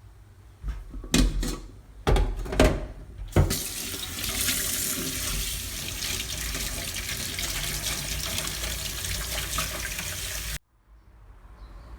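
A few knocks and clatters, then a tap running water into a sink in a steady rush for about seven seconds before it is shut off abruptly.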